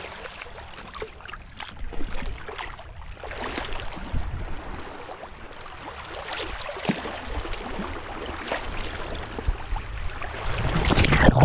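Seawater sloshing and splashing around a camera held at the water's surface, with irregular small splashes and wind rumbling on the microphone, growing louder near the end.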